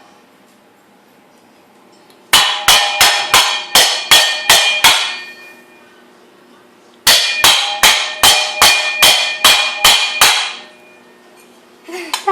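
Something metal struck hard and fast, two runs of about ten ringing blows each at roughly four a second, with a pause between them.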